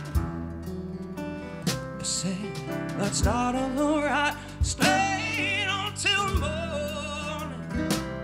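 Live rock ballad: a male vocalist sings held notes that waver and bend, over strummed acoustic guitar.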